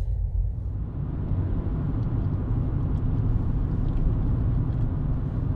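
Car cabin road noise while driving: a steady low rumble with tyre hiss from the wet road, the hiss swelling about half a second in.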